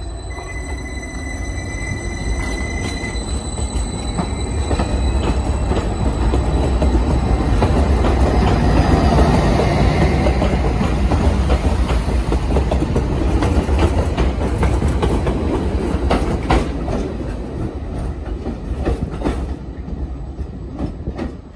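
Greater Anglia Stadler FLIRT bi-mode multiple unit pulling away and accelerating past, with a motor whine that rises in pitch in the first few seconds. Then comes a growing rumble of wheels on rail with clicks over the rail joints, loudest about halfway through as the carriages pass.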